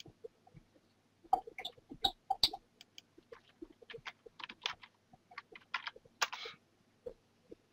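Typing on a computer keyboard: a run of irregular keystroke clicks starting about a second in and stopping about a second before the end, with one slightly longer click-noise near the last keystrokes.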